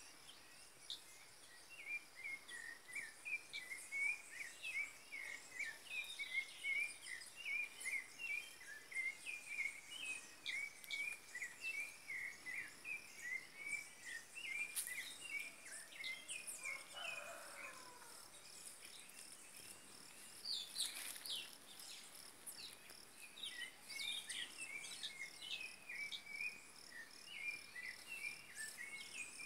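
Forest ambience: a steady high-pitched insect drone under a long run of quick, repeated chirping notes from a bird. The chirping stops for several seconds in the middle and then starts again near the end.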